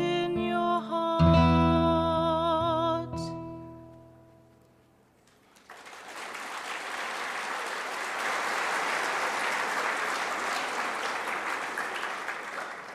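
A singer holds the final note of a hymn with vibrato over the accompaniment, and the music dies away. After a short gap the audience applauds steadily for about seven seconds.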